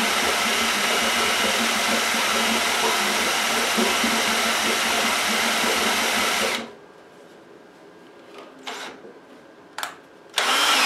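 Harbor Freight electric drill spinning an oil pump priming tool to prime the new oil pump of a small block Chevy 350, running steadily under load and cutting off suddenly about six and a half seconds in. The drill burns out and smokes from this load. A brief louder sound comes near the end.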